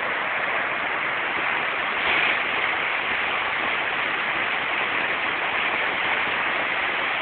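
Steady rush of river water pouring over rocks, an even hiss that swells slightly about two seconds in.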